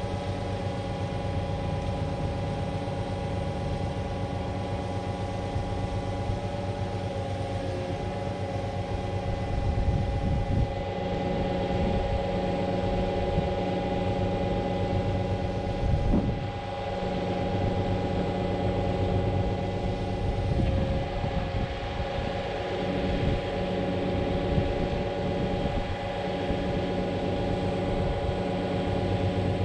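Concrete pump truck's diesel engine running steadily, with steady mechanical tones from the pump drive throughout.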